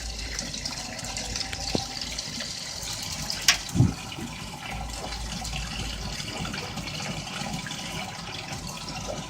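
Washing machine running, water sloshing and splashing in the drum over a steady low hum, with a couple of brief knocks about three and a half seconds in.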